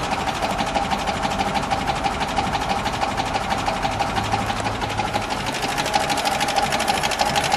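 1936 Alvis four-cylinder engine idling smoothly, with a fast, even ticking.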